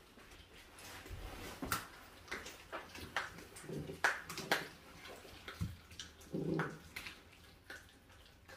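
Dogs eating: wet chewing and licking, heard as scattered soft clicks and smacks.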